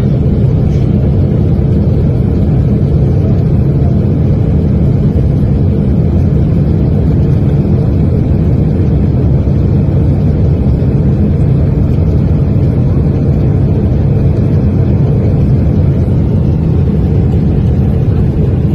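Loud, steady low rumble of a Boeing 777 airliner in flight.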